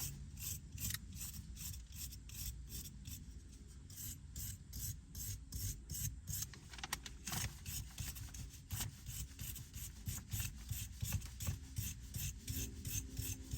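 Wire brush scrubbing old Loctite threadlocker residue off the threads of a manual car's shift lever, in quick, even back-and-forth strokes, about three or four a second.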